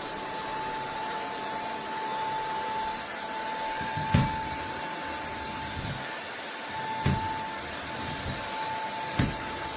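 Shark Pet Pro cordless stick vacuum running steadily, its motor giving a constant high whine over the airflow noise. Three dull knocks come about four, seven and nine seconds in.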